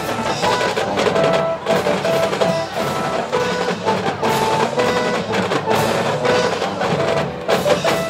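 Marching band drumline playing rapid drum patterns of snare and bass drum strikes, with short pitched notes over them. A few final hits come near the end as the piece closes.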